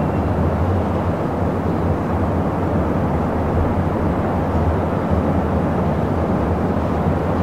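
Busy city traffic ambience: a steady, dense rumble of many vehicles blended into one wash of noise. A faint, brief high squeal, like a distant brake squeal, sits right at the start.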